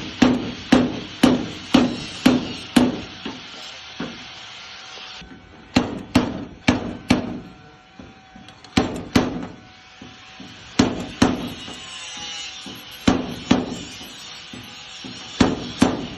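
Hammer blows on sheet metal in body-panel repair, struck at about two a second in runs separated by short pauses, each blow ringing briefly.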